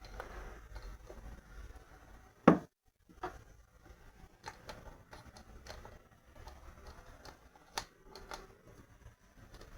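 Small clicks and knocks of little kitchen jars, lids and trays being handled and set down on a counter, with one much louder knock about two and a half seconds in and another sharp click near the end.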